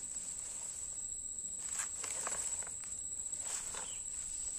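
Dry fallen sugarcane leaves rustling and crunching a few scattered times as a small child steps and drags a toy truck over them, over a steady high-pitched insect drone.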